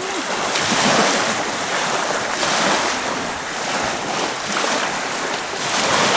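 Ocean surf breaking and washing up the beach, a loud hiss that swells and ebbs every second or two, with wind buffeting the microphone.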